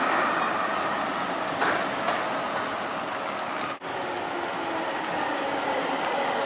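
Steady street traffic noise, then an electric low-floor tram rolling into a stop on its rails, a faint steady whine over its running noise. The sound breaks off briefly about four seconds in.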